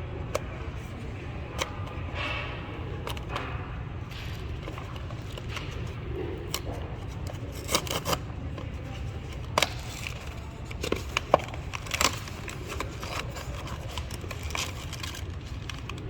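A Pop Mart blind box being opened by hand: cardboard and plastic packaging crinkling, scraping and tearing, with scattered sharp clicks, over a steady low hum.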